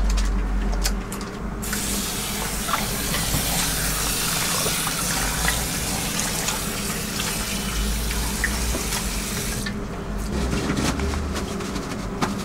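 Water from a tap running into a small sink over hands being washed. It comes on about a second and a half in and shuts off abruptly near the end.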